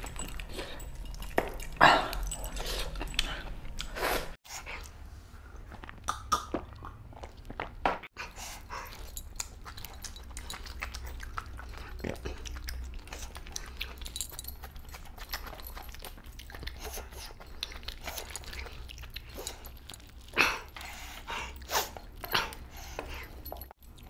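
Close-miked eating sounds: a person chewing and lip-smacking on a mouthful of mutton curry and rice, with irregular short wet clicks and smacks that come loudest about two seconds in and again near the end.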